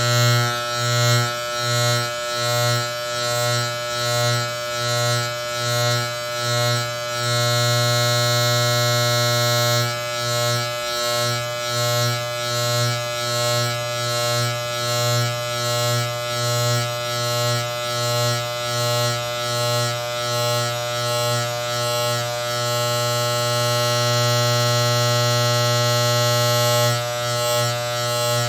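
Electric barber hair clipper cutting hair with a loud, continuous buzz. Its level swells and dips regularly, a little over once a second, for long stretches, and holds steady in between.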